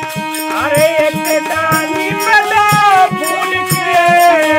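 Harmonium and dholak playing a dehati bhajan between sung lines: held harmonium reed notes with a moving melody over them, and steady hand-drum beats.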